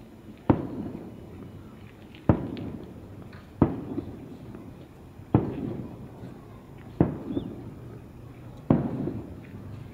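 Aerial fireworks shells bursting: six sharp bangs about a second and a half apart, each followed by a rolling echo that dies away.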